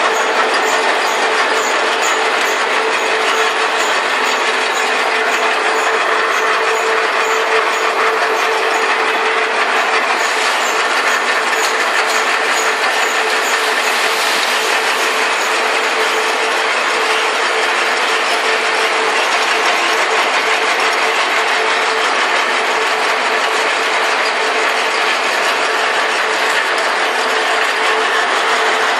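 Bagging machinery running steadily: a constant hum under a dense mechanical rattle that does not let up.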